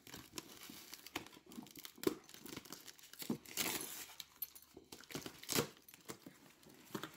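Packing tape and a plastic label sleeve being picked at and peeled off a cardboard shipping box, with irregular crinkling, tearing and scratching sounds, the loudest about 2, 3.5 and 5.5 seconds in.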